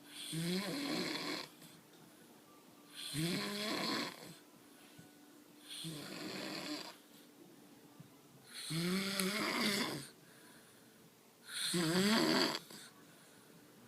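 A person snoring very loudly in deep sleep: five heavy snores, about one every three seconds. Each snore lasts a second or so and has a rough, pitched note that bends upward.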